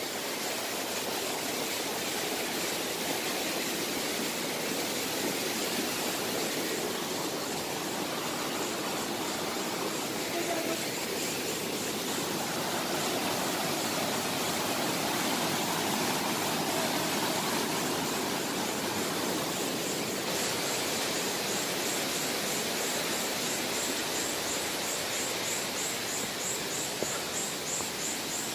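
Waterfall water rushing steadily over rocks, a constant full-band roar with no breaks.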